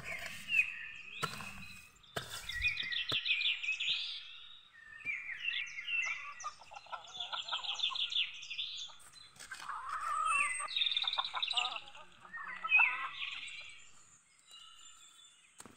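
A songbird singing short phrases of rapid notes again and again, with brief pauses between. In the first few seconds there are a few dull thuds of a garden hoe chopping into grassy ground.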